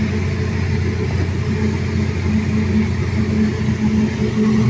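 Perkins 1300 series diesel engine running at a steady speed, with a fast, even pulsing.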